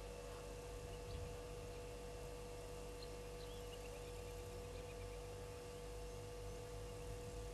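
Quiet outdoor ambience under a steady electrical hum, with a faint run of short, high, falling chirps about three seconds in.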